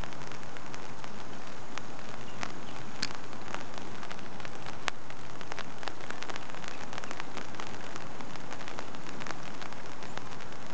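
Steady rain falling on a pond's surface, with many separate drops ticking sharply close by.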